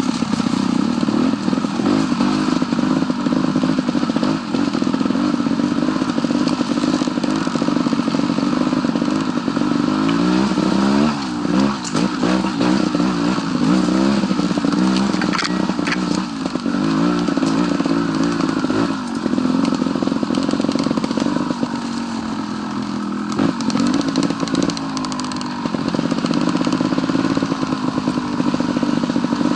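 Off-road motorcycle engine running along a rocky trail, its pitch rising and falling repeatedly with the throttle, with knocks and clatter from the bike over stones.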